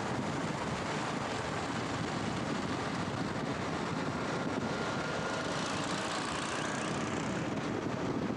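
Steady running noise of a vehicle on the move, with a continuous rush of wind over the microphone and a faint thin whine in the middle.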